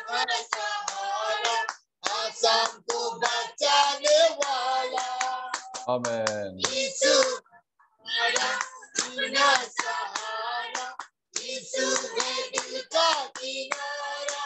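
A group of women singing together and clapping their hands, heard over a Zoom video call, with the sound cutting out briefly a few times.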